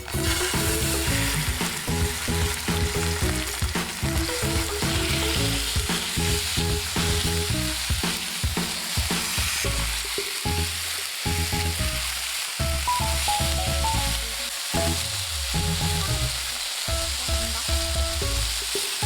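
Food sizzling as it fries in a hot pan, a steady hiss that begins suddenly, with background music playing over it.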